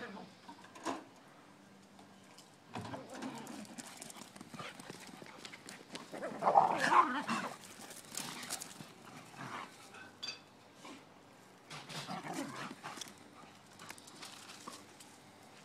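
Dogs at rough play, making irregular bursts of dog sounds with scuffling between them. The loudest burst comes about six and a half to seven and a half seconds in.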